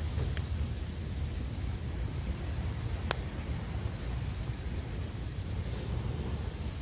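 Wood fire burning with two sharp crackling pops, one near the start and one about three seconds in, over a steady low rumble of sea waves.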